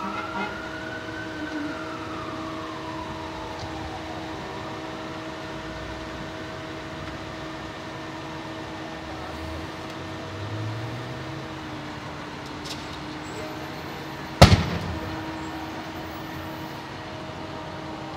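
The burning van's front tyre blows out with a single sharp bang about fourteen seconds in. Before it, a fire-truck siren winds down over the first few seconds, over a steady hum of idling engines.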